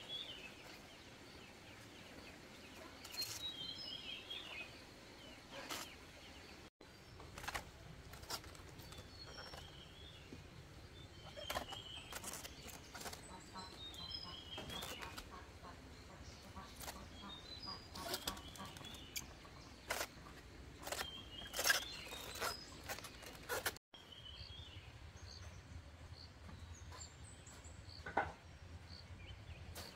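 Cabbage heads being handled and set into a woven plastic basket: scattered short thumps and leaf rustles. Small birds chirp now and then in the background.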